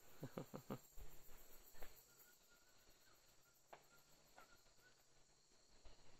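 Faint, steady high drone of rainforest insects. A quick run of about four sharp clicks comes in the first second, and a few single knocks follow later.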